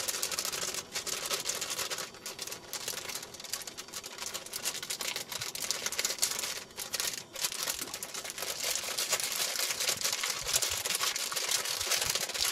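Bread mix packet crinkling and rustling as it is handled and emptied into a pan, a dense, continuous run of crackles.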